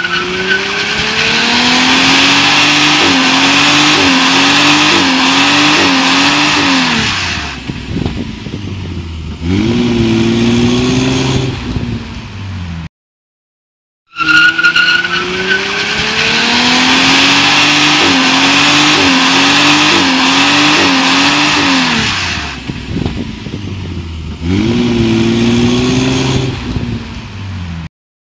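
1969 Ford Mustang coupé accelerating hard: a short squeal at the start, then the engine note climbs and wavers up and down before dropping off, revs up again briefly and cuts off. The same sequence plays twice, with about a second of silence between.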